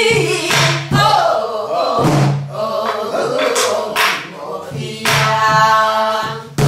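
Several voices singing a Korean Namdo folk song in the throaty minyo style, with sharp percussive strokes at uneven gaps of about a second.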